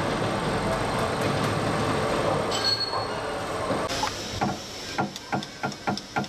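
Steady workshop noise, then from about four seconds in a run of sharp clicks, about three a second, from a mechanic's wrench working on a fastener in a car's engine bay.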